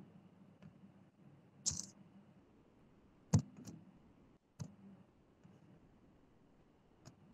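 Scattered faint, sharp clicks, about five of them, the loudest about three and a half seconds in, over a low steady background hiss.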